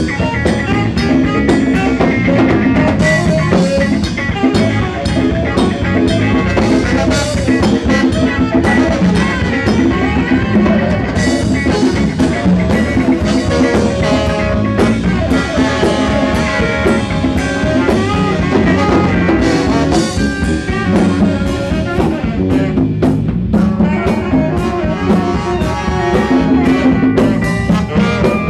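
A live jazz band playing: drum kit keeping a busy beat under brass horns, with trombone and piano.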